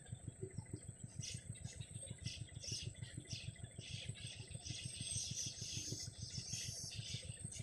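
Baby birds in the nest giving repeated raspy begging calls, starting about a second in and growing denser through the middle. Underneath, a steady low throb of an idling engine pulses about seven times a second.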